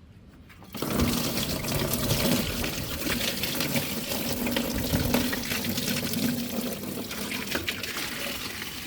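A steady stream of liquid running, starting suddenly about a second in and cutting off near the end.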